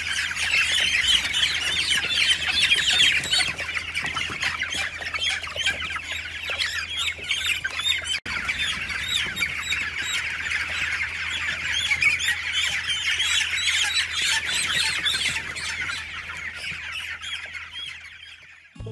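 A large crowd of newly hatched poultry chicks peeping, many short high calls overlapping continuously, with a brief break about eight seconds in and fading out near the end.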